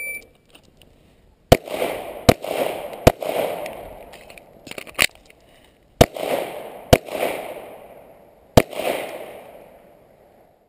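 A shot timer beeps, then a 9mm competition pistol fires seven shots at targets, each shot echoing briefly. Most shots are about a second apart, with longer pauses before the fourth and the last.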